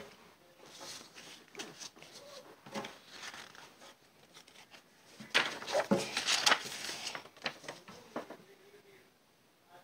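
A paper card rustling and crinkling as it is handled, loudest in a dense flurry about five to seven seconds in.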